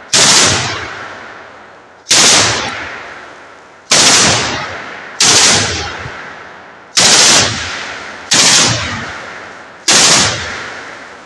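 ZU-23-2 twin 23 mm autocannon on a BTR-3D firing seven short bursts, one every one and a half to two seconds. Each burst is loud and sharp and leaves a long echo that fades away before the next.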